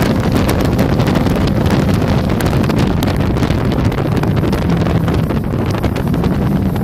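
Jet boat running at speed: a steady low engine hum under heavy wind buffeting the microphone.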